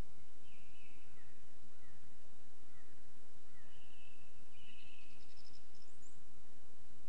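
A few birds singing before dawn: scattered short chirps, then longer trilled phrases in the middle and a quick run of notes climbing higher near the end, all faint over a steady hiss.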